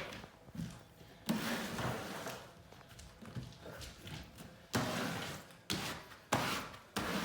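Hands rubbing and pressing leather wallpaper against the wall: a few short scuffing rustles, each starting suddenly and fading quickly.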